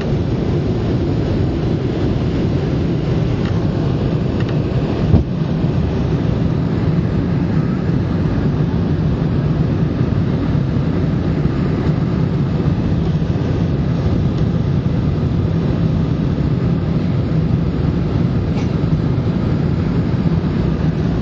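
Steady cabin noise inside a Boeing 717 airliner: the rumble of its rear-mounted Rolls-Royce BR715 engines and the airflow. A single short knock comes about five seconds in.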